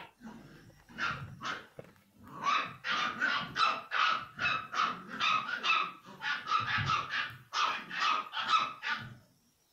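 Young puppies barking in a rapid series of short, high-pitched yelps, several a second, with brief pauses, stopping near the end.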